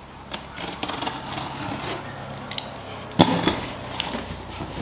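Cardboard shipping box being opened by hand: packing tape cut and pulled and the cardboard scraped and handled in a run of small clicks and scrapes, with one sharper knock about three seconds in.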